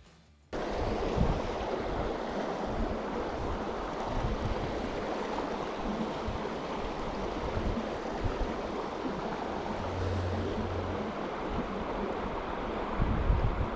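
River water rushing steadily, starting abruptly about half a second in, with wind buffeting the microphone in low gusts that get heavier near the end.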